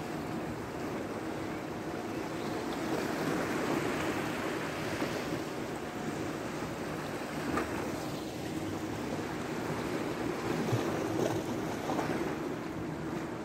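Sea waves washing against a rocky shore, swelling and easing, with wind buffeting the microphone.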